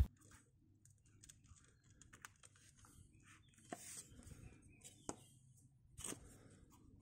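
Faint clicks and light knocks from a removed car rear shock absorber assembly being handled and turned over, its metal upper mount, rubber bump stop and rod moving in the hands. A sharp click at the very start, and a few sharper clicks about four, five and six seconds in.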